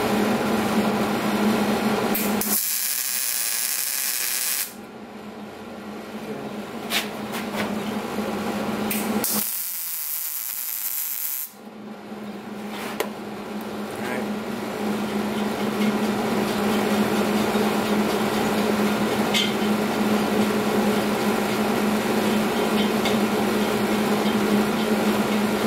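Two tack welds, each a welding arc crackling and hissing for about two seconds, fusing a steel nut onto square steel tubing: the first starts a couple of seconds in, the second about ten seconds in. A steady hum runs underneath throughout.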